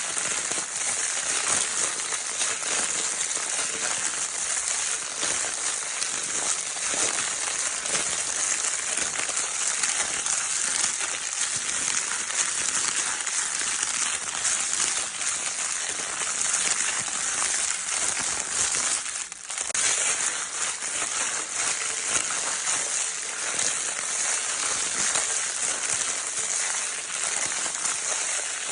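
Crinkle paper of a baby's crinkle toy being crumpled and rustled without pause, a dense, steady crackling hiss, with a brief lull about two-thirds of the way through.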